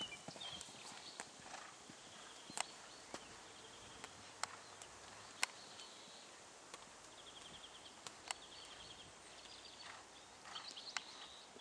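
A horse's hoofbeats at a canter on an arena, faint, as it lands from a jump and carries on around the ring, with a few isolated sharp knocks.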